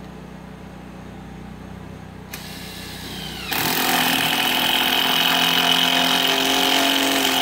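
Battery-powered impact driver driving a self-tapping screw through the 18-gauge steel bottom track. It starts about two seconds in, gets much louder a second later and then runs steadily.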